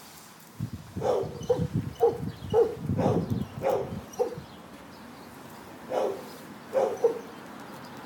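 A dog barking: a quick run of about eight barks over the first few seconds, then two more barks near the end, with a low rustling noise under the first run.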